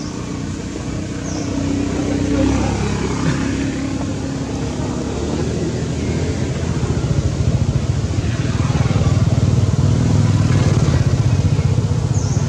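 A motor vehicle engine running with a low, pulsing rumble that grows louder over the first several seconds and then holds steady.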